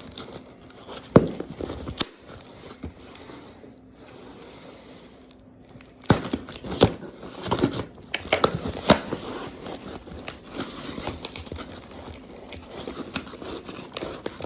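A mail-order plant package being opened by hand: packing material crinkling and tearing. There is a sharp knock about a second in and a quieter stretch, then steady rustling with many sharp crackles from about six seconds on.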